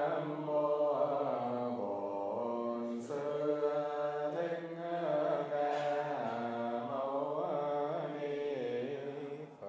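Buddhist chanting: voices intone long held notes that bend slowly in pitch, fading out near the end.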